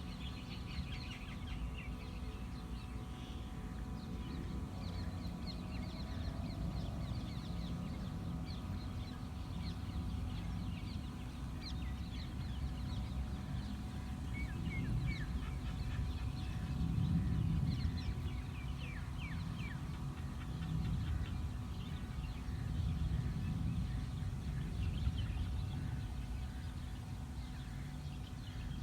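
Many small birds chirping, with short, quick down-sliding calls coming thick and overlapping the whole time. A steady low rumble runs underneath.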